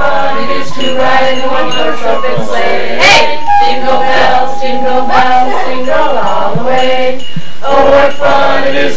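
Christmas carol music: a group of voices singing together with accompaniment.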